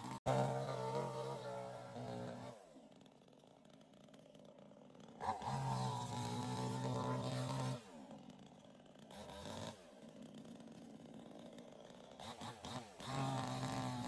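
Chainsaw engine revved hard in three bursts. Each time the throttle is let off, the pitch falls away to a quieter idle, then rises again as it is revved back up.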